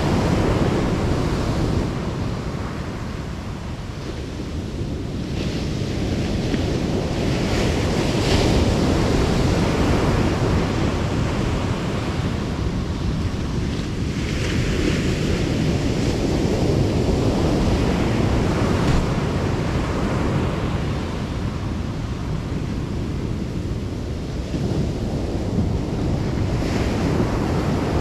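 Ocean surf breaking and washing up the beach, a steady noisy wash that swells every several seconds as waves come in, with wind rumbling on the microphone.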